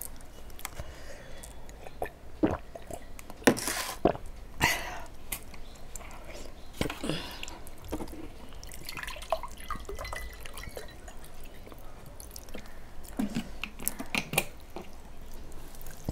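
A hand mixing rice with curry on a steel plate: scattered wet clicks and squishes. A few sharper clicks come about three to five seconds in and again near the end.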